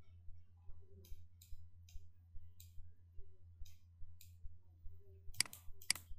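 Computer mouse clicking: a few light, scattered clicks, then two sharper clicks about half a second apart near the end, over a low steady hum.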